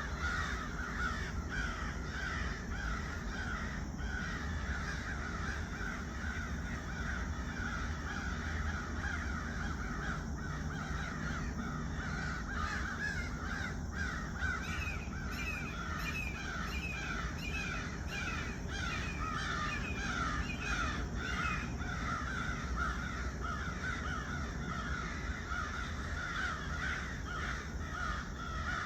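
A large group of crows cawing all at once: a continuous din of many overlapping short caws, with no let-up.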